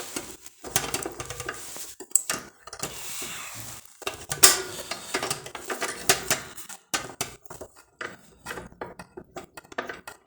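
Metal nuts clinking and rattling as they are unscrewed and handled on the counterweight rod of a solid-fuel boiler's air damper, in irregular clicks with a sharper clank about four and a half seconds in. The weight is being reduced so the damper can shut fully and put the boiler into stop.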